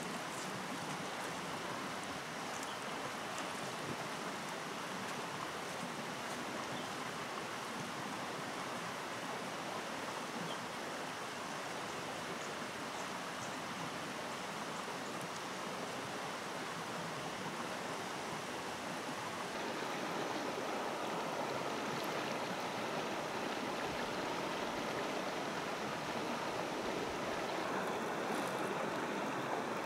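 Shallow river water running steadily over gravel and stones, a little louder from about two-thirds of the way in.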